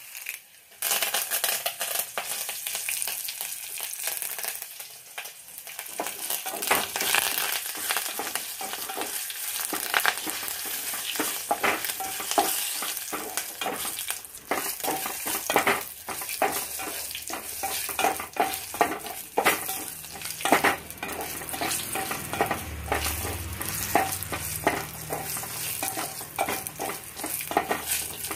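Tempering seeds, dried red chillies, crushed onion and curry leaves frying in hot oil in an aluminium pot. The sizzling starts suddenly about a second in, as the curry leaves hit the oil. A wooden spatula stirring and scraping against the pot gives frequent sharp clicks.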